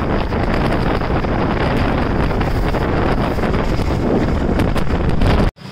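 Loud wind buffeting the microphone on a moving motorcycle, a steady rushing noise heaviest in the low end, cutting off abruptly near the end.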